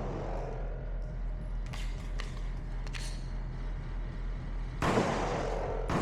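9mm Glock 19X pistol shots fired at a slow, aimed pace: a few fainter sharp cracks in the first half, then two loud shots about a second apart near the end, each with a short echoing tail.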